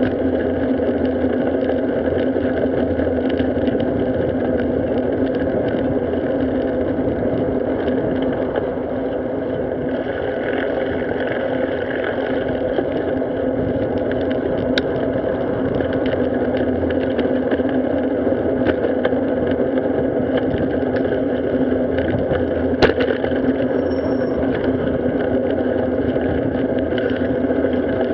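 Steady rumble and hum of road and wind noise while riding along a paved street, with two sharp clicks about halfway and about two-thirds through.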